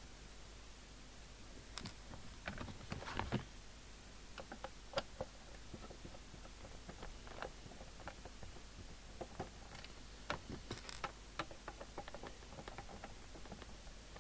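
Scattered clicks, taps and light knocks of a CB radio set being handled on the bench as its case covers are taken off, with two busier clusters of handling noise.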